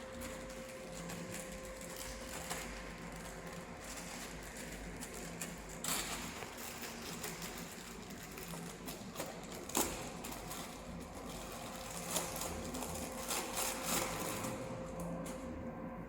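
Steady mechanical hum with a constant tone, broken by scattered clicks and knocks, the sharpest about six and ten seconds in and a cluster near the end.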